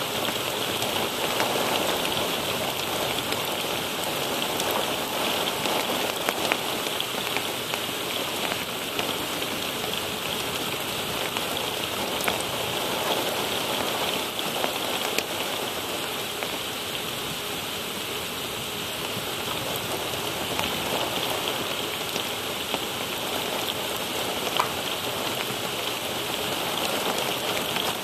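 Heavy rain pouring down steadily, with scattered sharp ticks of individual drops striking close by.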